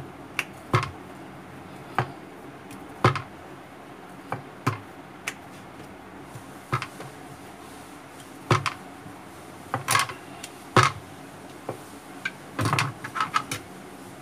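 Scattered knocks and taps of a wooden rolling pin on a round rolling board as small discs of dough are rolled out, with quick knife taps on the board near the end as holes are pricked in a disc.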